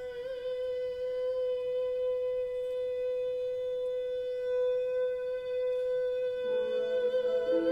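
A male singer holding one long, steady high note. About six and a half seconds in, the accompanying instruments come in underneath with low sustained chords.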